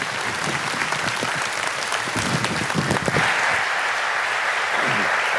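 Congregation applauding, with a few voices mixed in; the clapping grows fuller about three seconds in.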